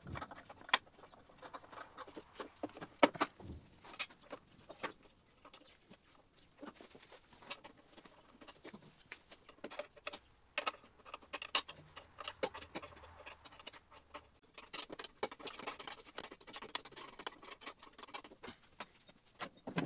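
Irregular small clicks, taps and clinks of metal parts and hand tools being handled while a diesel injector nozzle is put back together.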